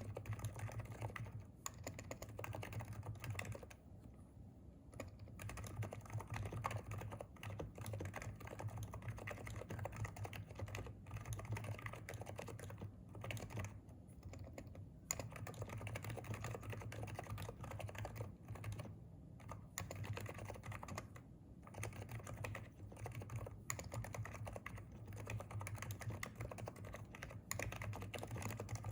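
Fast, continuous typing on a Hansung electrostatic capacitive (non-contact) keyboard: a dense run of keystroke clicks with a few brief pauses, including one about four seconds in.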